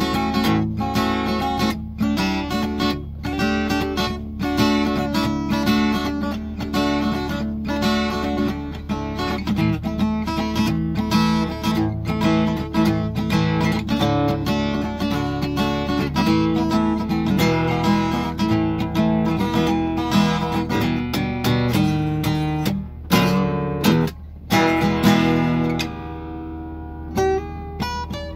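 Cutaway steel-string acoustic guitar strummed and picked in a steady rhythm of chords. About three quarters of the way in, the playing stops briefly and one chord is left to ring and fade before the strumming starts again. A steady low hum lies under the guitar throughout.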